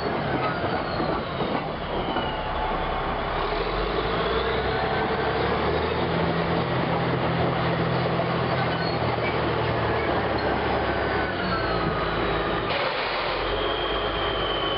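Caterpillar D8R crawler bulldozer running and travelling: its diesel engine drones under the clank of its steel tracks, with thin gliding squeals from the undercarriage.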